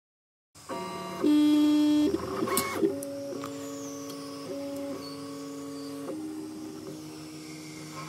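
Original Prusa i3 3D printer running a print. Its stepper motors whine in steady tones that jump to a new pitch every second or so as the moves change. The sound starts about half a second in, is loudest for a second after that, and a few clicks come about two and a half seconds in.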